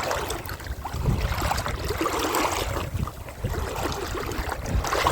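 River water sloshing and swishing around legs as a person wades through knee-deep water.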